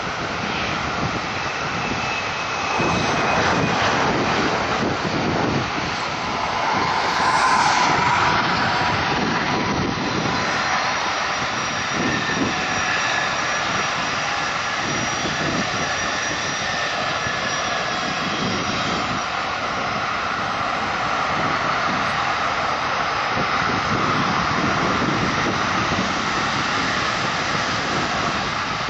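Jet airliner engines running at taxi power: a steady rushing noise with a thin high whine over it. Cars and trucks pass close by, and the sound swells a few seconds in and again around eight seconds.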